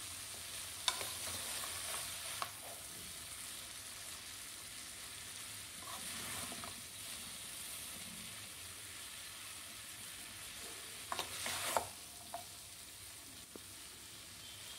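Ragi noodles and vegetables sizzling in a nonstick kadai while being tossed with two spatulas: a steady faint hiss with a few clicks and scrapes of the utensils against the pan, clustered near the end.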